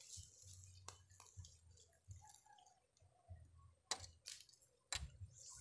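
Near silence with a few faint, sharp clicks and a low rumble that comes and goes.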